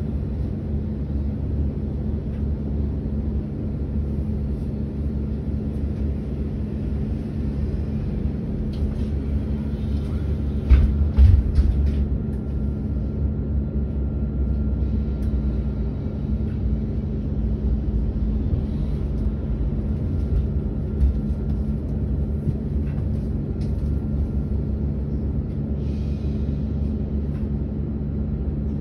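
Solaris Urbino 18.75 hydrogen fuel-cell electric articulated bus standing still, its onboard equipment running with a steady low hum and drone. A short cluster of knocks about eleven seconds in is the loudest moment.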